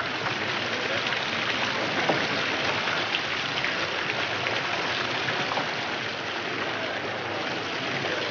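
Steady noise of a large crowd: a dense, even hiss with faint scattered crackles.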